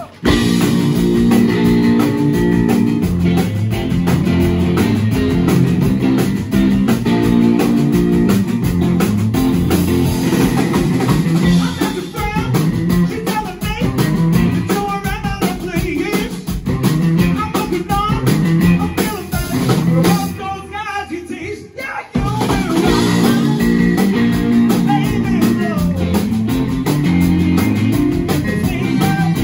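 Live blues-rock band, two electric guitars and a drum kit, kicking in together at full volume, with a man singing. About twenty seconds in the band drops out for roughly two seconds, then comes back in.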